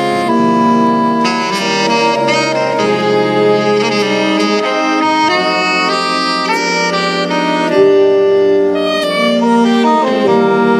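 A saxophone orchestra playing live: several saxophones sounding sustained notes in harmony that move every second or so, with a quick run of falling notes near the end.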